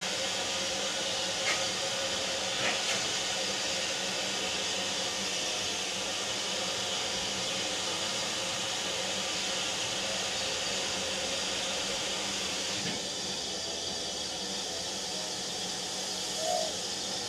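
A steam locomotive standing at the platform gives off a steady hiss of escaping steam.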